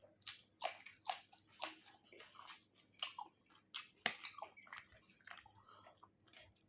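A person chewing and biting chicken, with short wet smacking clicks about twice a second.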